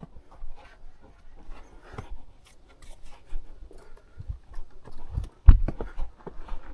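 Irregular footsteps with rustling and scraping, and a heavier thump about five and a half seconds in.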